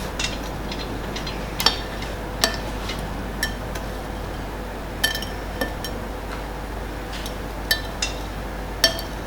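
A spoon clinking against a bowl about eight times at irregular intervals, short sharp clinks with a brief ring, as Eton mess ingredients are spooned in and mixed.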